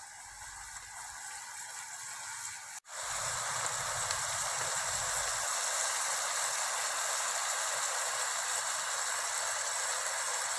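Pot of goose meat and greens cooking over a wood fire, a steady sizzling hiss. It cuts out for an instant about three seconds in and comes back louder.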